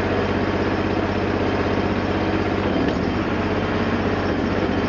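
1998 Terramite T5C backhoe's Honda engine running steadily.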